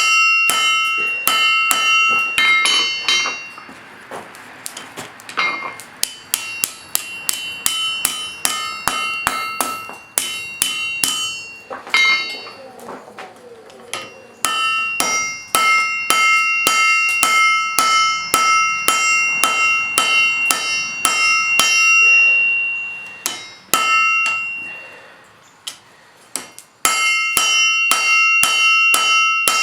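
Hammer striking steel on an anvil in quick runs of about three blows a second, the anvil ringing after each blow. There are short pauses between runs.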